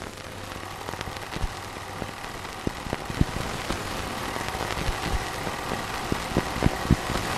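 Surface noise of an old archival recording: a steady hiss and low hum with irregular clicks and pops, growing slightly louder.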